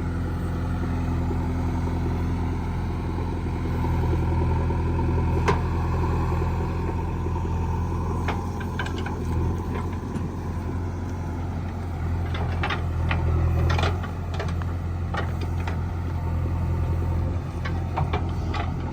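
A JCB 3DX backhoe loader's diesel engine running steadily, rising and falling under load. Scattered sharp clanks and knocks come in clusters, one about five seconds in and several in the second half.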